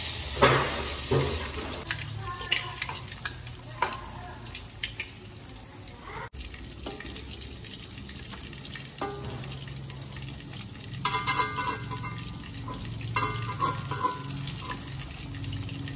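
Battered banana slices and vegetable fritters deep-frying in two woks of hot oil, sizzling steadily, with a louder burst of sizzling about half a second in as batter-coated slices go into the oil. A metal slotted spatula scrapes and clicks against the wok as the fritters are turned, in quick clusters of clatter about two-thirds of the way through.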